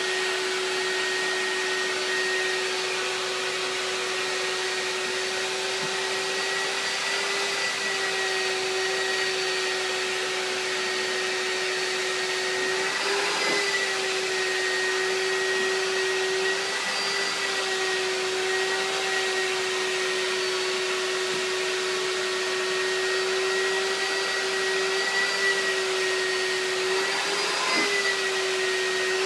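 Vacuum cleaner running steadily while being run over a cat's fur, a steady motor whine whose pitch dips briefly a few times.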